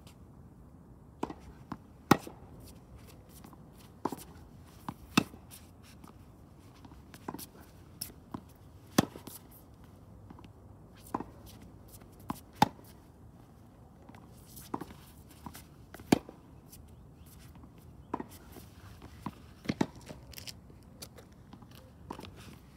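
Tennis balls struck by rackets and bouncing on the court during a rally: sharp pops every second or two, irregularly spaced.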